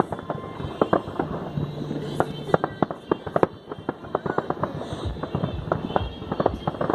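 Rapid, irregular sharp pops and cracks, several a second, with a fainter hum of music or voices beneath.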